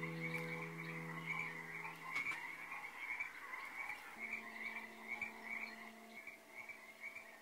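Night chorus of frogs calling continuously, a dense rapid trilling that carries steadily through. Soft music fades out underneath over the first few seconds.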